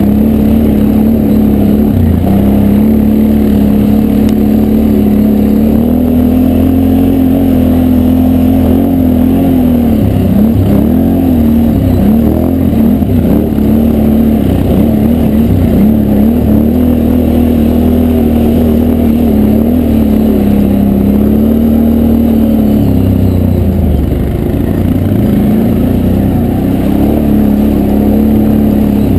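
Can-Am Renegade 1000 quad's V-twin engine running under way on a dirt track, its pitch wavering with the throttle, easing off and picking up again about ten seconds in and once more near the end.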